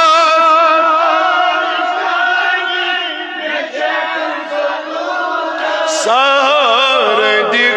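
Unaccompanied Islamic devotional chant: one melodic voice holding long, wavering, ornamented notes. It softens for a few seconds, then turns busier and louder with quick ornaments about six seconds in.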